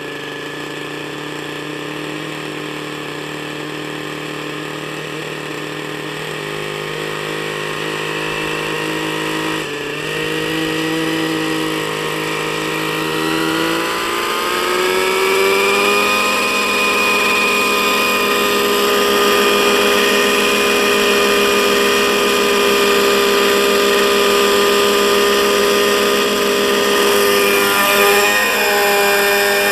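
Nitro glow-fuel engine of an RC helicopter running, steady at first. About ten seconds in its pitch rises over a few seconds as the rotor head spools up, then it holds steady at the higher speed.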